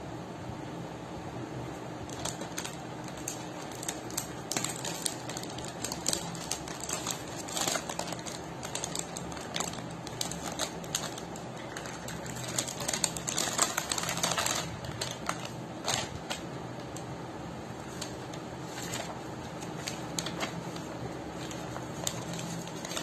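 Plastic packaging crinkling and clicking as hands handle and open it, with a denser stretch of crinkling about halfway through. A steady low hum runs underneath.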